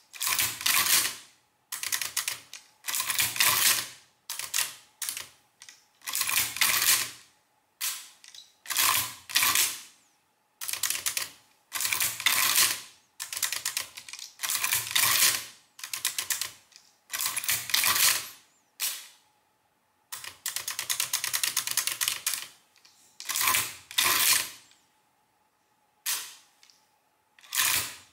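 Astra Class 0 mechanical adding machine being cranked over and over by its hand lever, the exposed mechanism clattering and ratcheting through each stroke. There is roughly one stroke every second or two, with a longer run of rapid clicking about two-thirds of the way through.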